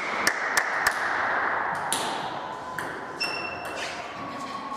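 Table tennis ball bouncing: three quick clicks in the first second, then two more single clicks later, over steady hall noise.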